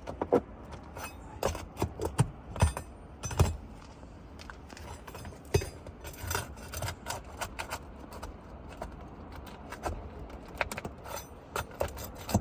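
Asphalt roof shingle being worked loose and prried up: irregular sharp clicks, scrapes and crunches as it is broken free from its seal and nails.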